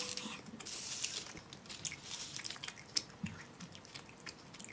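Close-miked wet chewing, with many small smacking and clicking mouth sounds. There is a brief rustle near the start as plastic macaron trays are handled.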